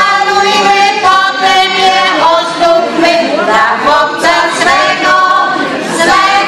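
A small mixed group of amateur singers, women and a man, singing a song together into microphones with no instruments, on long held notes that glide from one to the next.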